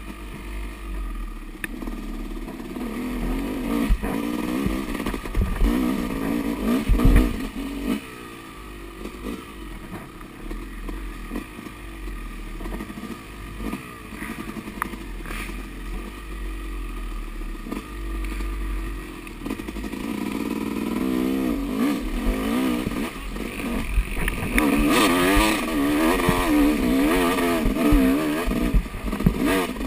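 Small-displacement Yamaha dirt bike engine revving up and down as it is ridden along a trail, with clattering knocks from the bike over bumps. The revving gets louder and busier in the last third.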